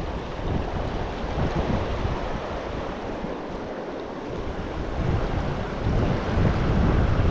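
Rushing mountain-stream water with wind buffeting the microphone in gusts, growing louder about six seconds in.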